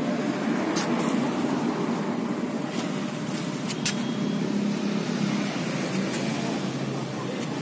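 Steady low background rumble, like distant road traffic, with a few faint sharp clicks.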